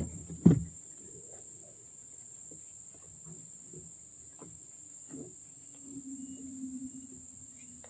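Two loud knocks within the first second, as of something striking a small aluminium boat, then faint clicks from the handline being wound. A steady high insect drone runs underneath, and a low steady hum comes in over the last two seconds.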